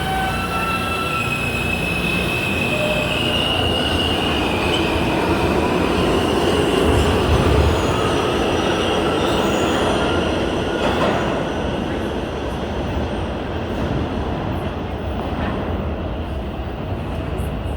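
New York City subway garbage train made up of R42 cars running along the track: a steady rumble of wheels on rail, with thin high wheel squeal in the first few seconds. It grows loudest about seven seconds in and then eases off.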